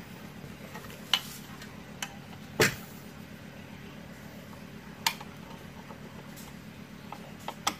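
Sharp metallic clinks and knocks, about six of them, the loudest about a third of the way in, from hands and a screwdriver handling the metal housing of a vintage 8-track car stereo. A steady low hum runs underneath.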